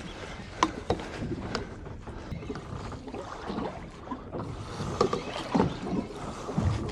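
Small boat drifting at sea: water and wind noise around the hull, with scattered sharp knocks and clicks.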